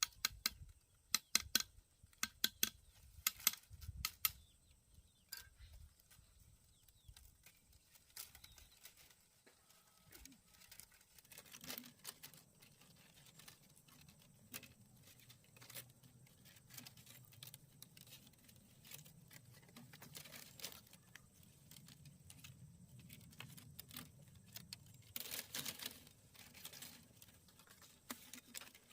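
Thin bamboo strips clicking and rustling as they are woven by hand. A quick run of sharp ticks comes in the first few seconds, then scattered clicks, with another cluster near the end.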